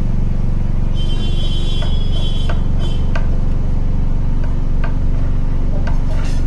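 Steady low mechanical hum, like a running engine, with scattered light clicks, and a high-pitched whine from about one to three seconds in.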